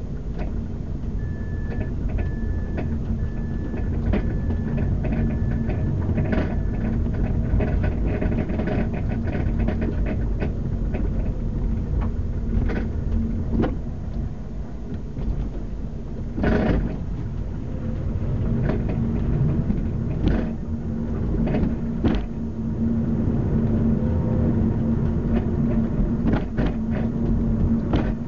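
Rear suspension of a 2005 Mazda 3 clunking over bumps, heard from inside the trunk while driving: irregular sharp knocks over a steady low road rumble, one especially loud about two-thirds of the way through. The clunk comes on every bump but not while braking; the owner thinks it is mostly on the driver's side.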